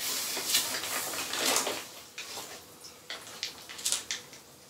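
Rustling of plastic bags and newspaper packing being handled in a shipping box, loudest in the first couple of seconds, then softer with a few short rustles.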